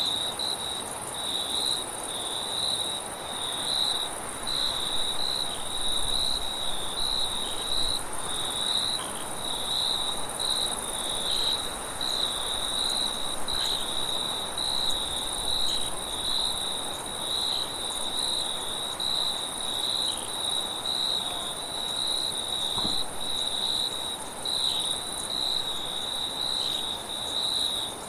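Crickets chirping in a steady, unbroken chorus of rapid pulsing trills, with a second, higher continuous trill above it and a faint hiss of background noise beneath.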